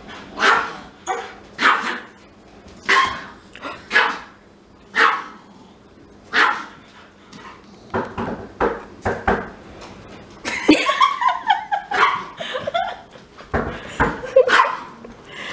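A Pomeranian and a husky barking at each other: sharp barks about one a second, coming faster from about six seconds in. Around eleven to twelve seconds in a drawn-out whine falling in pitch mixes in with the barks.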